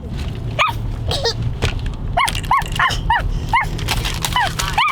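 A dog barking in a quick run of about nine short, high-pitched barks, most of them bunched in the second half.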